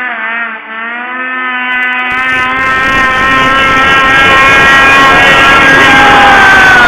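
Snowmobile engine running hard as the sled skims across open water, growing steadily louder. A rushing spray noise joins in about two seconds in, and the engine pitch drops slightly near the end as it goes by.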